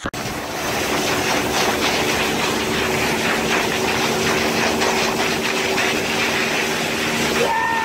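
Steady hiss and rush of spray as a barefoot water-skier is dragged across the water behind a boat, holding a side boom, over the boat engine's steady hum.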